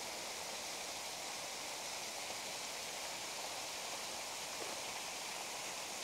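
Steady, even rush of a small waterfall splashing into its pool.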